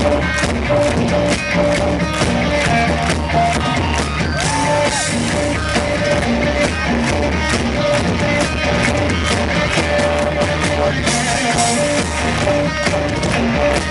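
Live rock band playing loud, with electric guitar and a drum kit keeping a steady beat.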